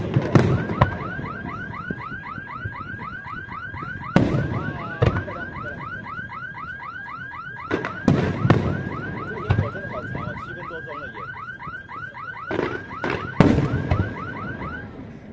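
Aerial fireworks shells bursting with loud bangs in clusters, about four, eight and thirteen seconds in. Through them a car alarm sounds a rapid, evenly repeating rising chirp, about five chirps a second, which the blasts have most likely set off.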